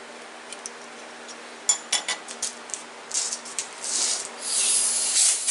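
Hand tapping and tool handling at a metal lathe: sharp metallic clicks and clinks start a little under two seconds in, followed by louder scraping and rubbing toward the end.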